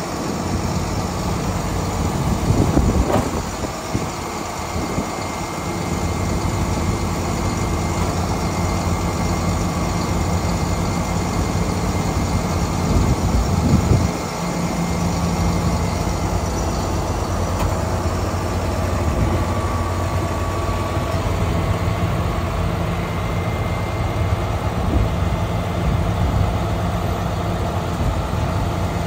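International DT466 diesel engine running at idle while the truck's hydraulic outriggers are extended and lowered. The sound swells around three seconds in and again up to about fourteen seconds in, then drops back suddenly.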